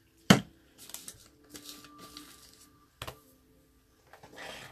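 Handling noise: a sharp knock about a third of a second in and another about three seconds in, with short scratchy rustles between them.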